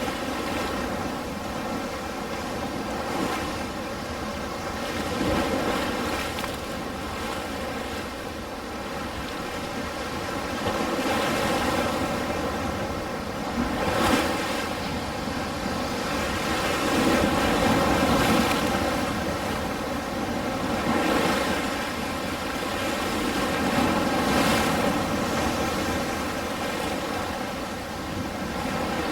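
Ocean waves washing onto a shore: a continuous surf hiss that swells and eases every few seconds.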